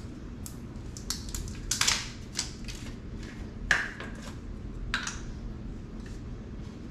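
Plastic spice container being handled: a scatter of small clicks and rattles as the cap is worked and garlic powder is shaken out into a measuring spoon, the sharpest click about three and a half seconds in, over a steady low hum.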